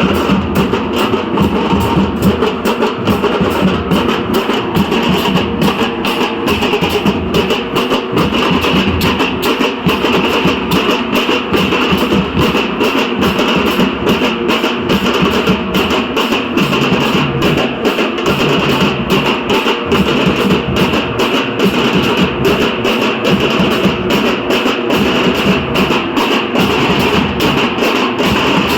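Dhol-tasha ensemble playing: deep dhol barrel drums under the rapid, sharp stick strokes of tasha drums in a fast, steady rhythm.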